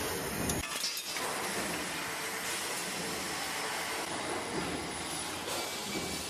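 Steady hiss and rumble of metalworking machinery with light metallic clinks. The sound changes abruptly about half a second in, when the low rumble drops away.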